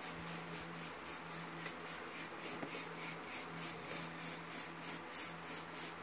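Trigger spray bottle squirting soapy water onto a tire bead in quick repeated squirts, about three or four a second, to find where the tire is leaking air. A faint steady hum lies underneath.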